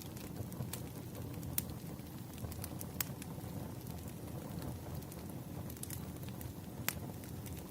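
Wood fire burning, a steady low rumble with scattered sharp crackles and pops, two louder pops about three seconds in and near the end.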